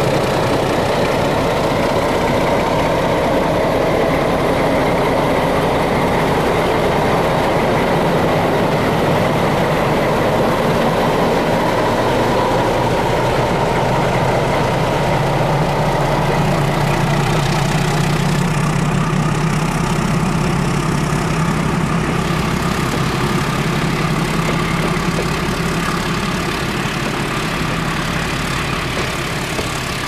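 D19E diesel-electric locomotive running as it pulls a passenger train slowly away, with its passenger coaches then rolling past on the rails. The sound is steady and eases off slightly near the end.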